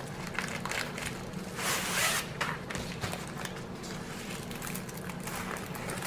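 Rustling and crinkling of a rolled diamond painting canvas and its packaging being handled and unrolled, with a louder swish about two seconds in, over a steady low hum.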